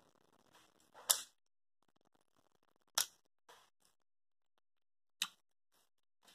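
Sounds of eating mussels by hand: three short, sharp clicks about two seconds apart, about a second in, about halfway and near the end, with near silence between them.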